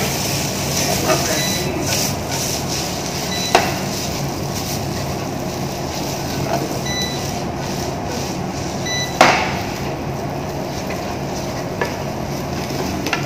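Fresh fettuccine sizzling in a frying pan as it is stirred and tossed with a wooden spatula, with the spatula knocking sharply against the pan twice.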